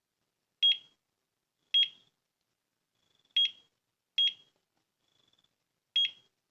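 Digital alarm clock's buttons beeping as the alarm is set: five short, high beeps, each with a click, at uneven gaps of roughly one to two seconds, with a few fainter pips between them.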